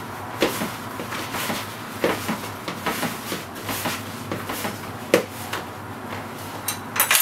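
Bread dough being kneaded by hand on a worktop: irregular soft thumps and knocks, roughly one or two a second, with a sharper knock about five seconds in.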